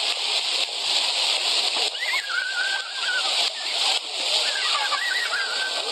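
Water jets of a ground-level plaza fountain spraying up and splashing down onto paving stones: a steady, continuous hiss. A child's high voice calls out about two seconds in and again near the end.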